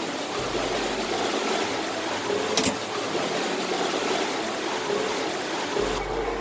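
Steady rushing noise of a building's air handling, with one sharp click about two and a half seconds in; the rush thins out a little near the end.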